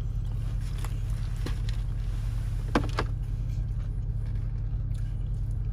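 Steady low hum of a car's engine idling, heard inside the cabin, with a few short sharp crackles as a crispy fried chicken wing is pulled apart and eaten, the loudest pair a little under three seconds in.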